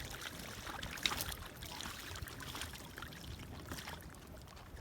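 Ducks paddling and dabbling in a tub of water, with soft, scattered light splashes and drips.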